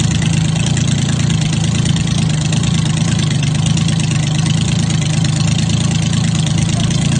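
Custom motorcycle's big multi-cylinder engine idling steadily through open individual exhaust pipes, a loud, even low drone with no revving.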